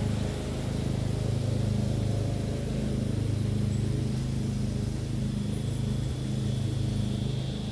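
A steady low mechanical hum with a slight pulsing.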